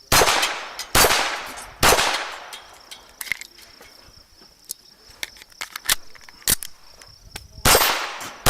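Ruger Mark II 22/45 .22 rimfire pistol firing: three sharp shots about a second apart, then a pause of several seconds with only fainter clicks, then another shot near the end and one more right at the close.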